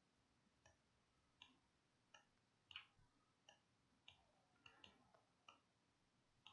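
Faint computer mouse clicks: about nine sharp, irregularly spaced clicks as a mouse button is pressed and released while dragging vertices and handles.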